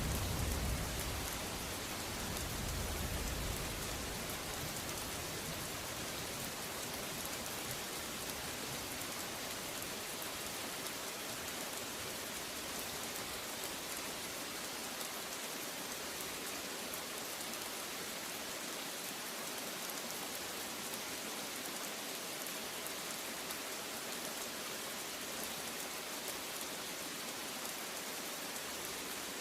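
Steady rain, a continuous even hiss of falling drops. A low thunder rumble dies away over the first few seconds.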